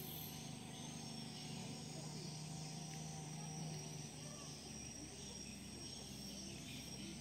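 Outdoor rural ambience: insects chirping steadily, with a low steady hum through the first half that then fades.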